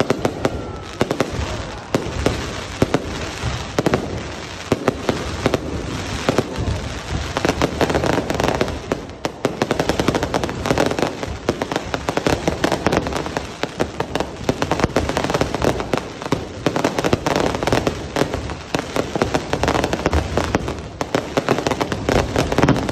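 Fireworks display: a continuous, rapid barrage of overlapping bangs and crackling, with frequent sharp reports standing out.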